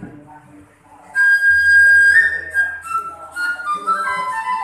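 Keroncong band's flute playing a melody: a long held high note entering about a second in, then a phrase stepping down in pitch, over the band's string accompaniment.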